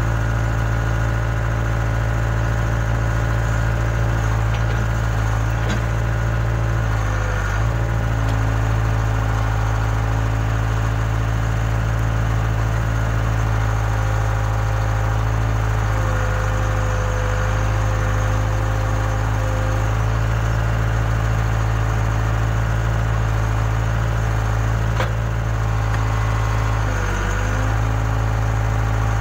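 Case 580K backhoe loader's diesel engine running steadily, its pitch dipping briefly twice, as it does when the machine takes load.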